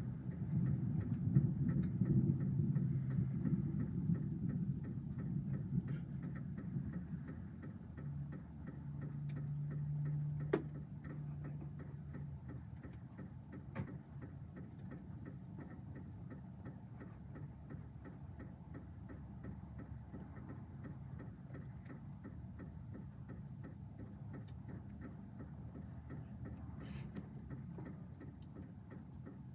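Distant thunder rumbling low, loudest over the first several seconds, swelling again briefly and then fading to a quieter steady rumble, with faint scattered ticks throughout.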